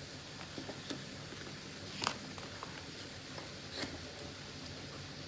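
Tarot cards being shuffled and handled: a few soft taps and flicks, one a little louder about two seconds in, over a faint steady hiss.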